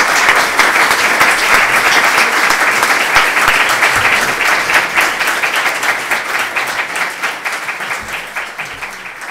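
Audience applauding, a dense clapping that slowly dies away toward the end.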